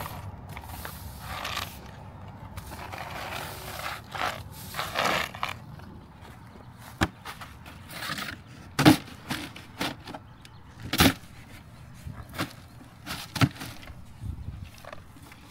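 Push broom sweeping grit and granite dust across a concrete sidewalk, in rough swishes of bristles on concrete. Then, about seven seconds in, a broom-free stretch with a series of sharp, loud knocks a second or two apart.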